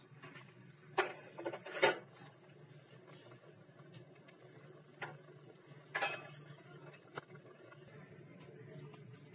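Metal spoon clinking and scraping against a kadhai while stirring boiling carrot kheer: about six sharp, separate clinks spread through, over a faint steady low hum.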